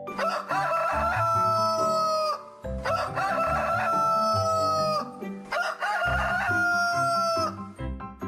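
Rooster crowing three times, each crow lasting about two seconds and ending with a falling tail, over a light children's music backing.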